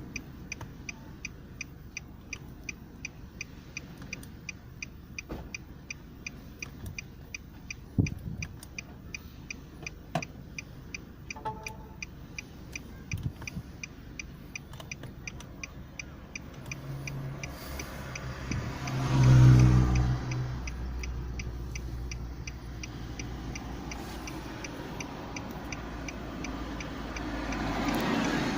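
A faulty appliance ticking steadily and rapidly, about two to three clicks a second. A low, pitched hum swells up about two-thirds of the way in, becoming the loudest sound, and rises again near the end.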